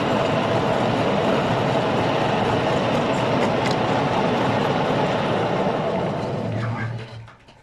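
Metal lathe running with a steady mechanical noise from its headstock gearing, then winding down and going quiet about seven seconds in.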